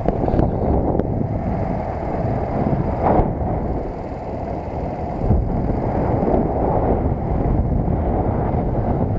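Wind rushing over the camera microphone on a moving JSD100 underbone moped, mixed with the moped's running engine and road noise, with a brief louder gust about three seconds in.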